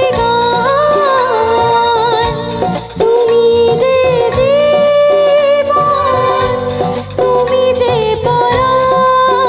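A woman singing a Bengali song into a microphone, holding long notes with a slight waver, backed by a live band with keyboard and drums through the stage sound system.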